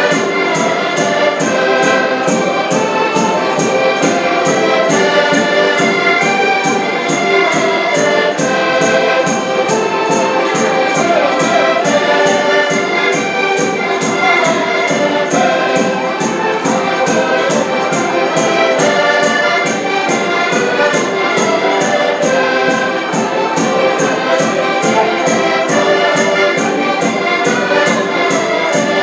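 Several diatonic button accordions (Portuguese concertinas) playing a folk tune together in chords, with a bass drum beating a steady rhythm.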